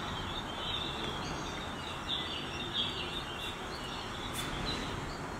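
Small birds chirping repeatedly in short, high calls over a steady rush of wind noise.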